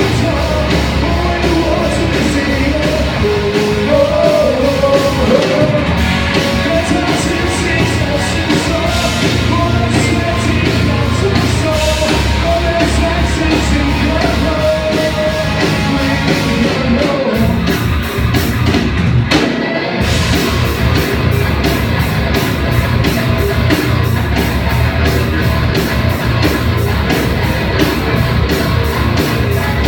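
Live rock band playing, with a singer's voice over the band for the first half. About two-thirds of the way through the singing stops and, after a brief break, the band goes on without vocals over a steady, fast drumbeat.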